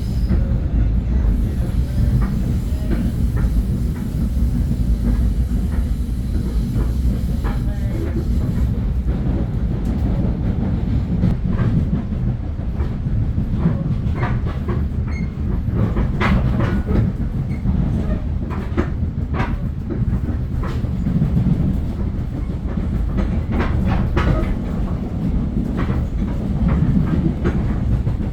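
Metro-North commuter train running between stations, heard from inside the car: a steady low rumble of wheels on track, with sharp clicks from the rails that come more often in the second half.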